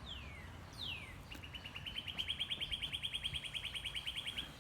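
A songbird singing: two falling whistled notes, then a long rapid trill of about ten notes a second that rises slightly in pitch and stops just before the end.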